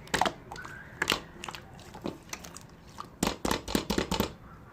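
Clear yellow slime squeezed and pressed by hand, giving sticky clicks and pops: single ones near the start and about a second in, then a quick run of them from about three seconds in.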